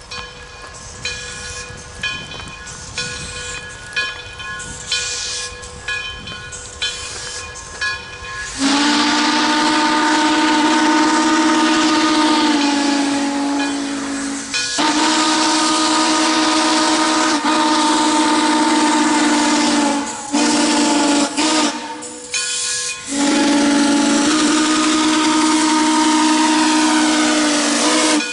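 Crossing bell ringing steadily. About eight seconds in, the multi-note steam chime whistle of Frisco 1630, a 2-8-2 steam locomotive, sounds two long blasts, brief toots and a final long blast: the grade-crossing whistle signal as it approaches the crossing.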